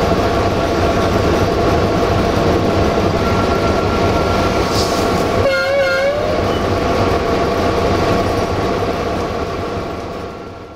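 Cab of an LDH1250 diesel-hydraulic locomotive underway: steady engine and running noise, with a short horn blast about five and a half seconds in, its pitch wavering. The sound fades out near the end.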